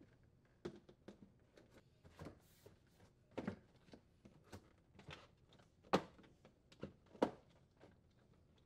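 Faint scattered clicks and knocks of a refrigerator's plastic cooling duct panel being handled and pressed into position against the plastic rear liner, with two louder knocks about a second apart past the middle.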